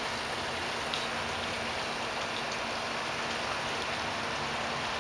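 Steady hiss of background noise with a faint steady low hum underneath.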